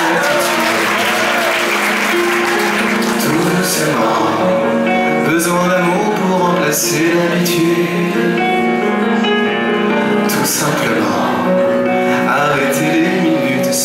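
Live French pop song: a man singing into a microphone over piano, with the audience singing along.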